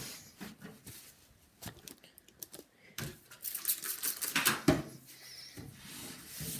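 Handling noises on a desktop computer case: scattered clicks and taps with bursts of paper-towel rustling, and a sharp knock about four and a half seconds in.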